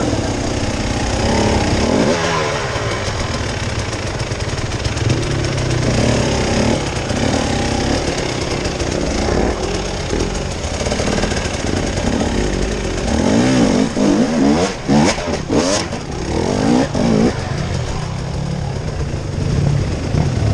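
Off-road motorcycle engines revving up and down unevenly over rough ground, with a few sharp knocks about fifteen seconds in.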